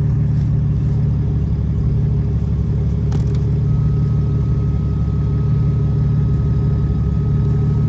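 Pickup truck's engine idling steadily at a charging idle, with a click about three seconds in. A faint, steady high tone joins about a second later as the stereo is switched on.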